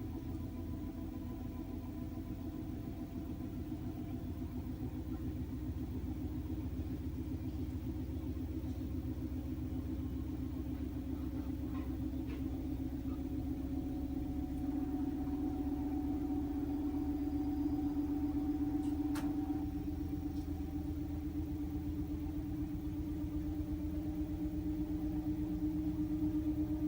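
Toshiba AW-DG14WAG top-loading washing machine spinning in its spin-dry cycle. It gives a steady rumbling hum that climbs slightly in pitch and loudness, with a few faint clicks. The cabinet is shaking and making an abnormal noise, as the owner reports.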